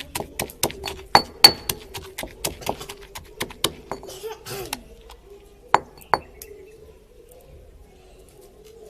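Moringa leaves being pounded with a little water: rapid sharp clinks of hard strikes on a hard vessel, about three or four a second, that slow and stop about four seconds in, followed by two single strikes a moment later.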